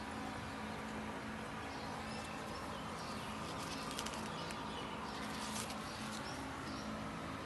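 Birds calling faintly in short chirps over a steady low hum.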